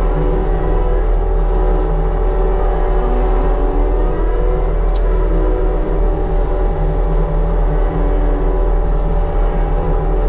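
Mini excavator engine running steadily while driving a Rut hydraulic brush cutter head, with a slight dip and recovery in pitch about three seconds in.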